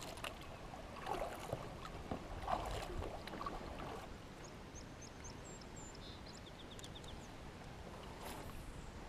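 Kayak paddle strokes in calm water: the blade dipping and dripping with a soft splash every second or so in the first half and again near the end. Faint high bird chirps and a quick trill come in between.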